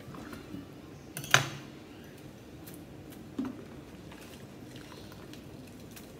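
A knife set down on a granite countertop: a sharp metallic clack about a second in, then a softer knock a couple of seconds later.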